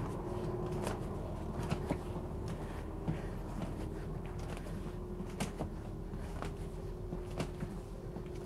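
Footsteps and scattered light knocks and clicks on a school bus floor and seat frames as a person walks forward up the aisle, handling the seats to check that they are secure, over a steady faint hum.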